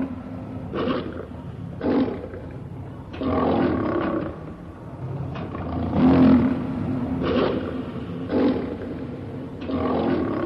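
Lion roaring: a run of deep roars and grunts, one every second or so, the loudest right at the start and about six seconds in. It is a sound effect standing for the extinct American lion.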